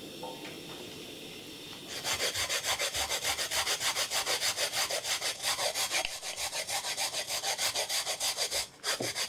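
Coconut flesh being grated on a long flat steel rasp grater, fast even scraping strokes at about four to five a second, starting about two seconds in, with a brief pause near the end.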